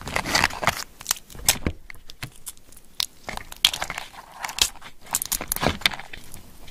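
Raw soy-marinated swimming crab being pulled apart by hand: thin shell and body segments cracking and crunching in irregular snaps, mixed with short wet squelches.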